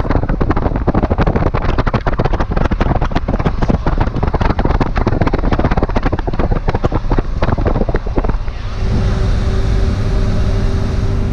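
Wind buffeting the microphone at the open window of a moving safari vehicle, with the vehicle's road noise under it. About eight and a half seconds in, this gives way to the steadier drone inside the cabin, with a constant hum.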